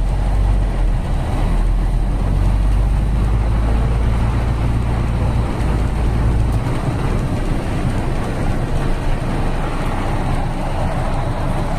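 Strong wind with rain, gusts buffeting the microphone with a deep rumble that eases about two-thirds of the way through, over a steady hiss.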